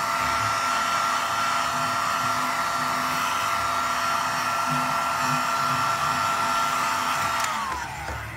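Heat gun running steadily, a blowing rush with a motor whine, heating a vinyl floor tile to loosen it for lifting. Near the end it is switched off and the whine falls away as the motor winds down.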